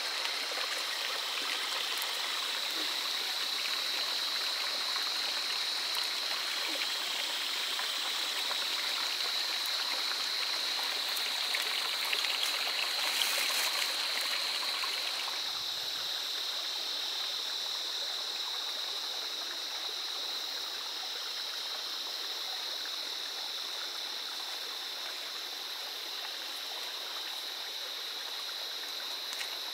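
A small stream of running water, flowing steadily, with a steady high-pitched note over it.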